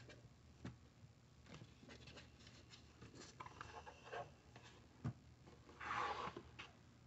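Faint taps and rustles of butter slices being dropped onto diced food in a crock pot. Near the end, a knock and then a short scrape as a plastic cutting board is tipped over the pot and the rest of the butter is pushed off it.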